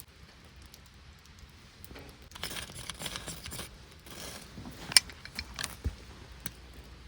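Gear being handled: a rustle, then a run of sharp clinks, the loudest about five seconds in, over a faint patter of rain.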